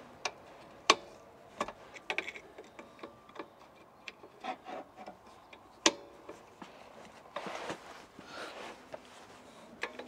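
Hand tool clicking and scraping on the brake adjuster behind a caravan's wheel drum brake as it is tightened and backed off: scattered sharp clicks and knocks, the two loudest about a second in and about six seconds in, with quieter rubbing and scraping near the end.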